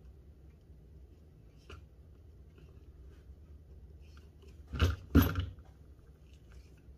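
Handling noise from a hydraulic cable-lug crimper and heavy copper cable: light rustling and a small click, then two loud knocks close together about five seconds in.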